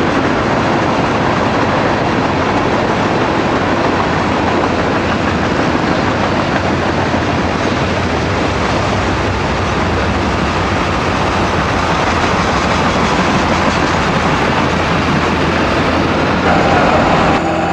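Freight train of hopper and tank cars rolling past steadily on the track, with a New Holland 8870 tractor pulling a Kinze planter through the field coming close by.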